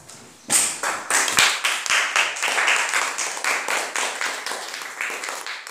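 A group of children clapping together. The claps start about half a second in, come several a second with some overlapping, and die away near the end.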